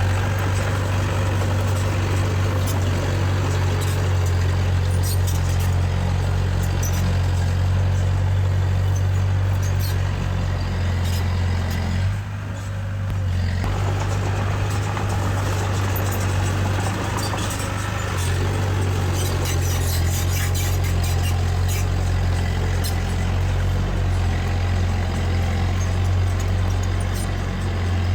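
Diesel engine of heavy earthmoving machinery running steadily, with a brief drop in level about twelve seconds in.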